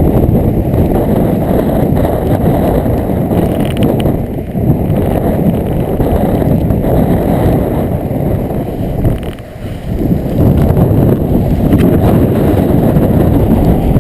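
Hurricane-force wind buffeting the microphone: a loud, gusty rumble that eases briefly about nine seconds in, then picks up again.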